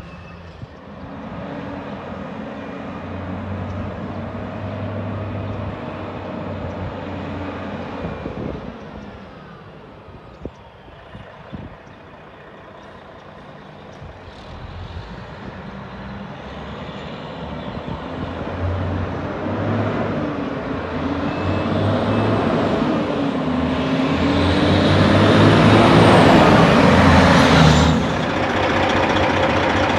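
Fire truck's Detroit 60 Series inline-six diesel engine running as the truck approaches, growing steadily louder with a rising hiss over the second half. The sound drops off abruptly near the end.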